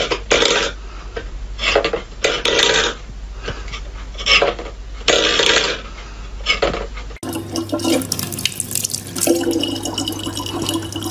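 Irregular short bursts of clattery noise for about seven seconds. Then, after an abrupt change, tap water runs steadily from a faucet into a large plastic water bottle.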